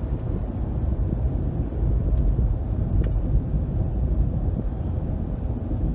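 Steady low rumble of a car being driven, engine and road noise.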